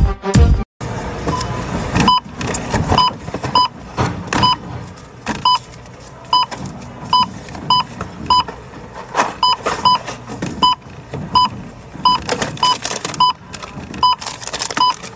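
Supermarket checkout barcode scanner beeping again and again as items are scanned in quick succession, about twenty short beeps, with the clatter and rustle of goods being handled in between.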